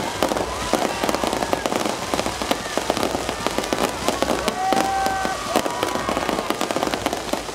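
Aerial fireworks with crackling golden stars bursting overhead: a dense, continuous crackle of many small pops. A few short held tones sound through it, the clearest about five seconds in.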